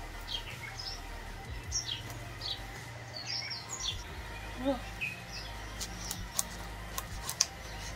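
Small birds chirping repeatedly with short, falling chirps, over a faint steady hum. Near the end come a few sharp clicks as the knife works on the fish on the wooden log.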